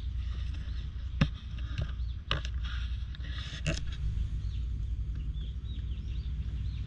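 Wind rumbling on the camera microphone outdoors, with three sharp clicks a second or so apart and faint bird chirps in the background.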